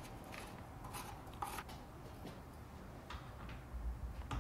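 Faint handling noises of a plastic submersible utility pump and its hose: light rubbing and a few scattered soft clicks.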